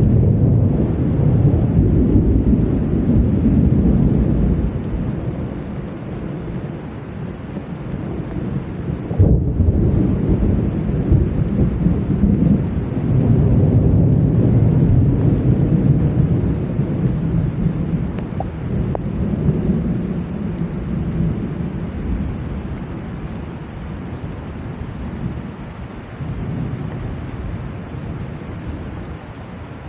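Summer thunderstorm: steady rain with long rolls of thunder that swell and fade, a sharper clap about nine seconds in, and the rumbling dying away toward the end.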